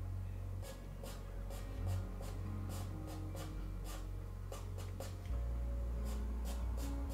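Pastel pencil scratching across Pastelmat paper in short, quick strokes, about two a second, laying down fine fur hairs. Soft background music with low sustained tones plays underneath.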